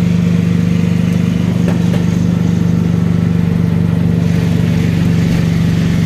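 Motorcycle engine running steadily at an even cruising speed, heard from the rider's seat.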